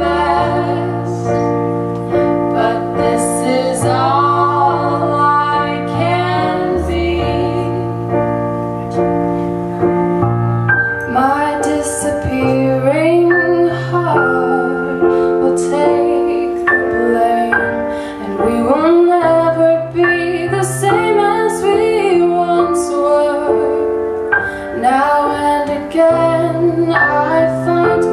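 Live performance of a song: female vocals singing a melody over held chords on an electronic keyboard.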